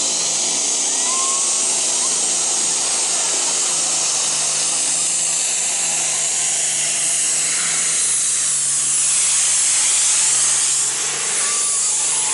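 Mini pulling tractor's racing engine running at full throttle as it hauls the weight sled down the track, a dense, steady engine noise that grows a little louder near the end.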